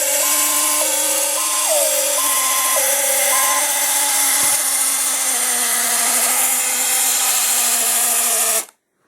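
Thunderbird 1 launch sound effect from the Interactive Tracy Island toy playset's speaker: a loud, steady rocket-engine roar with a two-tone alarm stepping up and down four times over the first few seconds, cutting off suddenly near the end.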